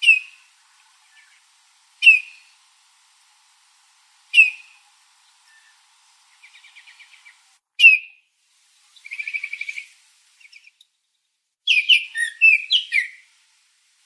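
Baltimore oriole calling: four short, sharp, falling call notes spaced about two seconds apart, two dry rapid chatters between them, and a quick run of varied whistled notes near the end.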